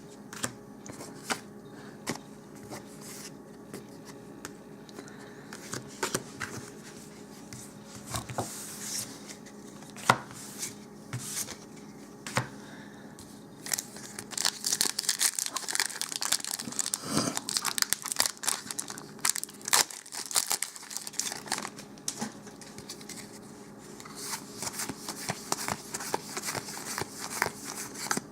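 A Magic: The Gathering booster pack's foil wrapper being torn open and crinkled, with scattered light clicks and taps of handling in the first half and the crinkling densest in the second half.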